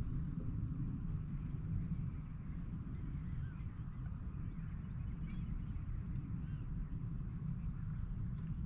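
Scattered bird calls, short chirps and whistles, over a steady low rumble.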